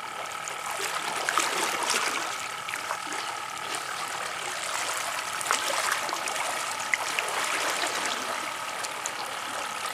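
Shallow seawater lapping and splashing around a person wading in rubber boots, with scattered small clicks.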